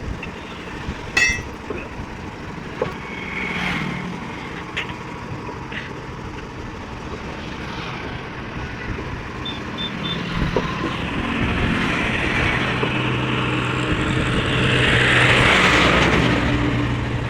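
Truck engine running steadily, growing louder in the second half, with a few sharp knocks in the first seconds as a jammed truck tyre is worked loose. A swelling hiss comes near the end.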